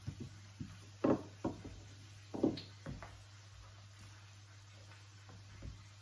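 A handful of short knocks and taps from kitchen work with utensils on a counter. Two louder knocks come about one and two and a half seconds in. A steady low hum runs underneath.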